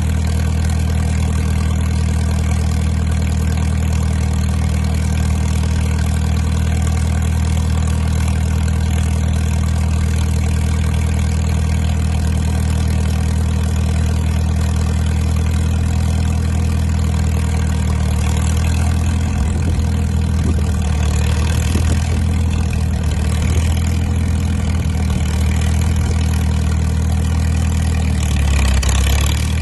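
Crawler dozer's engine idling steadily, warming up just after a cold-weather start on choke. Its low running grows less even in the second half, and its pitch shifts near the end.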